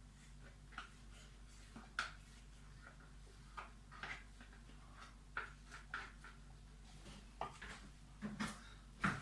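Quiet kitchen handling sounds: scattered light taps and clicks of utensils and cookware, a dozen or so spread through, over a faint steady low hum.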